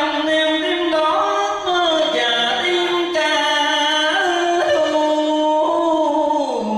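A man singing a Vietnamese tân cổ song into a handheld microphone. He holds long notes that slide up and down in pitch, with no break.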